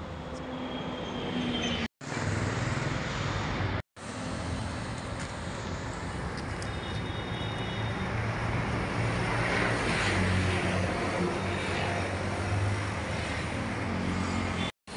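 Road traffic noise with a motor engine humming, swelling around the middle as if a vehicle passes close. The sound cuts out completely three times, each time for a moment.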